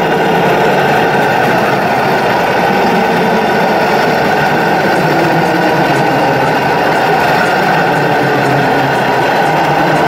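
Steady whine of a model hooklift truck's small electric hydraulic pump running as the hook arm tips the roll-off container up and back.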